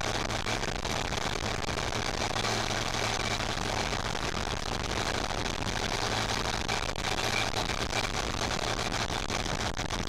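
Zetor Crystal 16145 Turbo tractor's turbocharged diesel engine running steadily while driving along at an even speed, a constant low drone with no change in revs.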